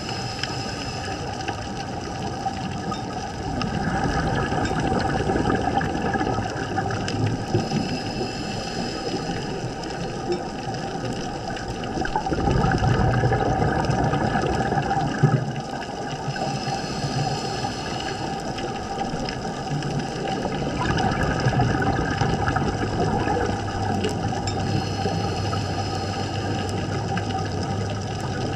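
A scuba diver breathing through a regulator underwater. Short hissing inhales alternate with longer, louder rushes of exhaled bubbles, in a slow cycle of about eight to nine seconds.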